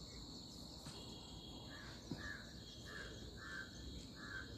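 A crow cawing repeatedly, about two caws a second, starting around a second and a half in, over a steady high-pitched insect drone.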